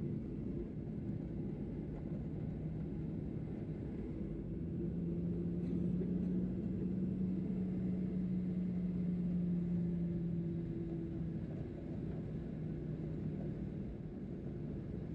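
Boeing 737-800 engines heard from inside the cabin: a steady rumble with a low hum that swells for several seconds in the middle, then eases back.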